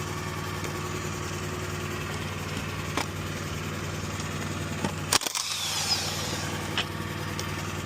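An engine idling steadily, with a few sharp metallic knocks on top, the loudest about five seconds in.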